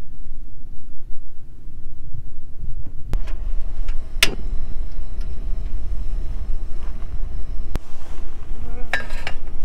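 Wind buffeting the microphone with a steady low rumble, broken by a few sharp clicks about three, four and eight seconds in.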